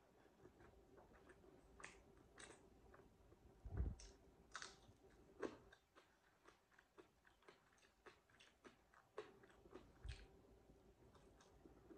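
Quiet close-up chewing and lip smacking of someone eating rice and meat by hand, with soft scattered clicks. Two dull thumps, one about a third of the way in and one near the end.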